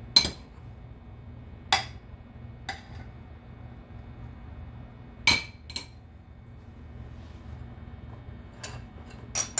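Metal utensil clinking against a glass baking dish while tomato sauce is spread over layers of fried eggplant. A handful of sharp, separate clinks, then a quick cluster of them near the end.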